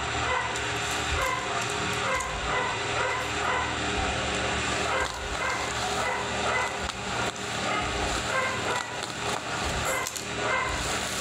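Plastic bubble-wrap mailer crinkling and rustling as it is handled and torn open. A small dog barks now and then in the background.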